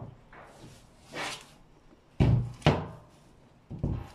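Metal parts of an ultrasonic transducer-and-horn assembly knocking against each other and the table as they are handled and set down: two sharp knocks about half a second apart a little after two seconds in, and another thud near the end, with a softer scrape about a second in.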